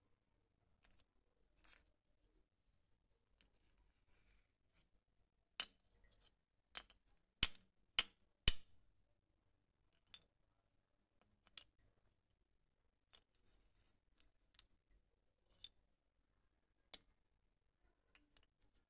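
Thin fired-clay (terracotta) pot shards snapped by hand and clinking against each other and a hard floor: sharp cracks and clinks, the loudest cluster of snaps about six to eight and a half seconds in, then lighter scattered clinks.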